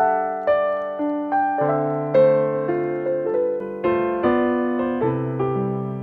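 Digital stage piano playing the slow introduction to a ballad: chords struck about twice a second, each note ringing on and fading.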